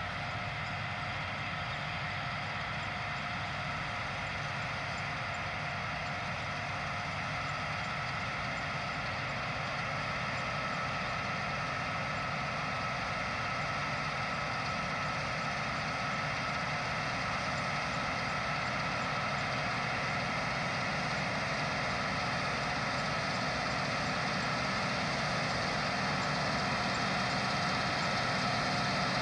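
1999 Claas Mega 204 combine harvester running while threshing turnip rape: a steady engine and threshing-machinery drone with a constant high whine. It grows gradually louder as the combine approaches.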